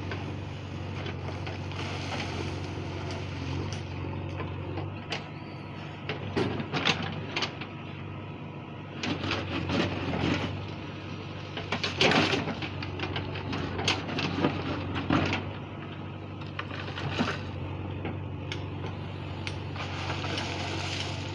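JCB 3DX backhoe loader's diesel engine running steadily while its backhoe bucket digs into stony soil. Scraping and rattling of earth and stones come in short spells through the middle as the bucket bites and lifts.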